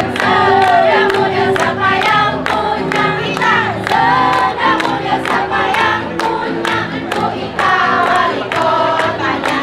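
A group of women singing a yel-yel cheer song together, with steady hand claps about twice a second.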